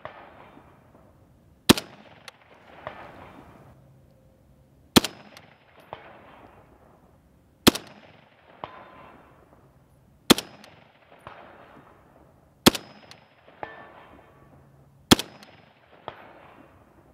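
FN FAL metric-pattern rifle in 7.62×51 NATO firing six deliberate semi-automatic shots, one every two and a half to three seconds. Each report rolls off in a fading echo, and a faint clang follows about a second after most shots.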